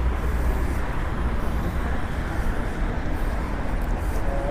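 Steady road traffic noise from cars on a busy multi-lane city avenue, a continuous rumble with no single vehicle standing out.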